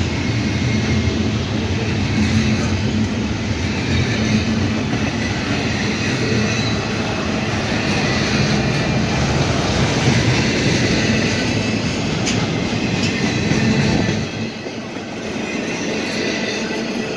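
Double-stack intermodal container train rolling past at track side: a steady rumble and clatter of steel wheels on rail, with thin high squealing tones from the wheels. The low rumble drops off a little about fourteen seconds in.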